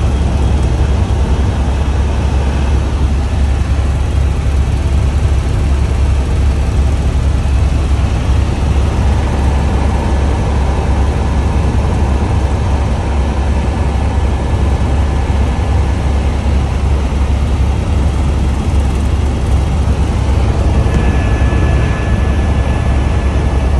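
Steady, loud low engine rumble of a vehicle under way, with a constant rushing noise over it.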